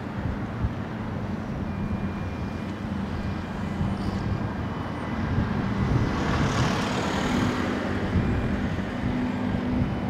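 Steady low engine drone with several fixed hum tones from a berthed vehicle ferry's engines. A rushing noise swells and fades about six to eight seconds in.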